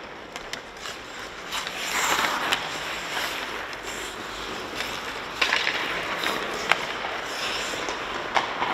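Ice-hockey skates scraping and carving on rink ice in swelling surges, with a few sharp clacks of sticks and pucks.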